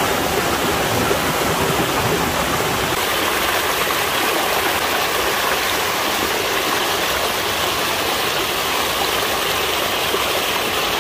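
Mountain stream tumbling down a small cascade over boulders, a steady rush of water.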